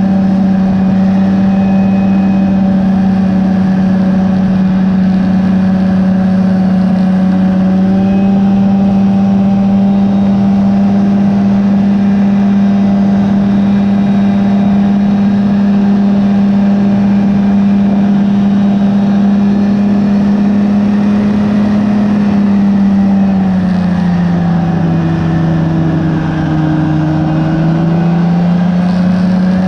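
Rotax 503 two-cylinder two-stroke engine and propeller of a Phantom X1 ultralight running steadily at cruise power. Its pitch drops for a few seconds about 24 seconds in, then rises back near the end.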